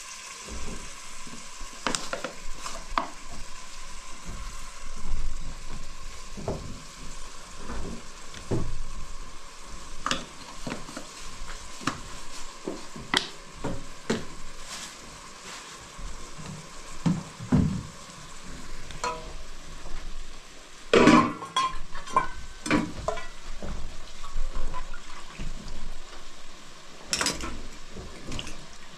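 Food sizzling in a metal cooking pot on a gas stove burner, with a steady hiss, while a ladle stirs and knocks against the pot. Metal dishes clink and clatter, loudest in a burst about three-quarters of the way through.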